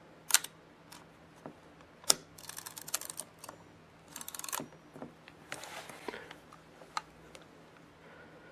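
Yashica Electro 35 GSN camera mechanism, top cover off, worked by hand: two sharp clicks, then two short ratcheting runs of the shutter and film-advance works, some handling noise and another click near the end. The mechanism is running with a homemade stacked-leatherette pad in place of the 'pad of death'.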